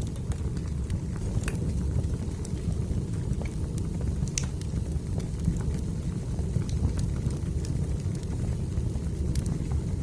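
Wood fire burning in a fireplace: a steady low rumble with scattered sharp crackles and pops, a few of them louder.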